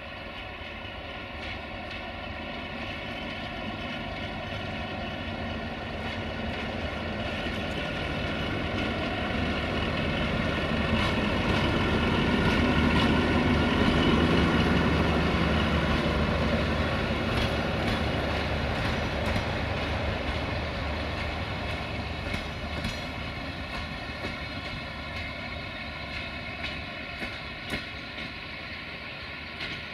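LDH1360 diesel-hydraulic locomotive hauling a regional train past. Its diesel engine grows louder to a peak about halfway through, then fades away, with a few sharp clicks near the end.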